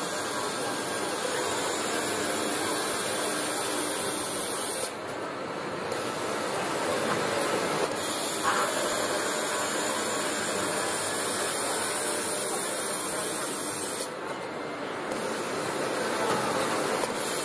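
Automatic circular saw for cutting steel bar, running through its automatic cycle: a steady hiss that thins out briefly twice, about nine seconds apart.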